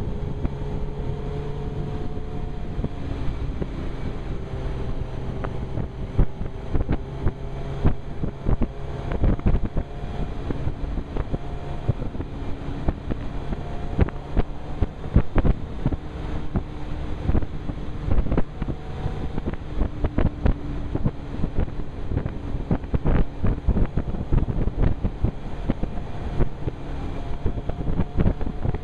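Wind buffeting a helmet-mounted microphone at road speed, over the steady running note of a Suzuki GSX-R 1000's inline-four engine, its pitch shifting up and down a little with the throttle.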